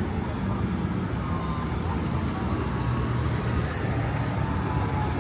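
City street traffic: motor vehicle engines running close by, a steady low drone with the hum of road traffic around it.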